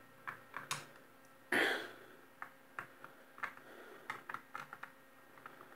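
Screwdriver working the screws of a small plastic rotary pump housing: a string of small, irregular clicks and ticks of metal on plastic, with one brief louder rustle about a second and a half in.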